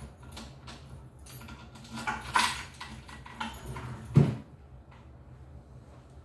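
Things being handled and put away in a cabinet: light clatters and knocks, busiest about two seconds in, with a louder thump about four seconds in.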